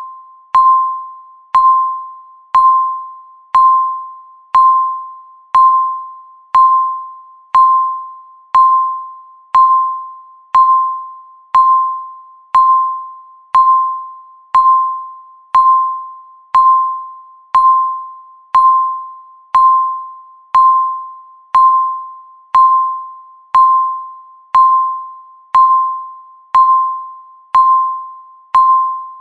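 Countdown timer beeping once a second: a single-pitch electronic beep, sharp at the start and fading away before the next, about twenty-nine in a row.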